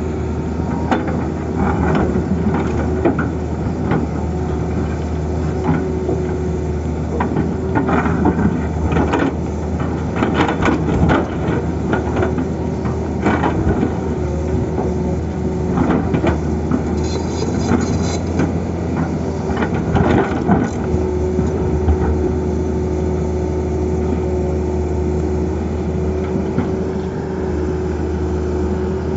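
Tata Hitachi excavator's diesel engine running steadily under load, with irregular knocks and scrapes as the bucket cuts into the road, thickest through the middle and with a brief high scrape about two-thirds of the way in.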